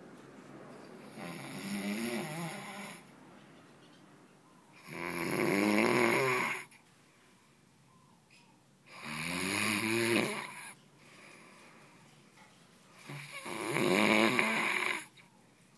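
Snoring: four long snores, each about one and a half to two seconds, coming roughly every four seconds with quiet breaths in between. The second and fourth are the loudest.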